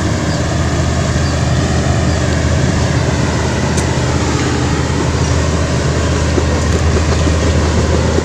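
Engine of a passing river boat, a loud, steady low drone.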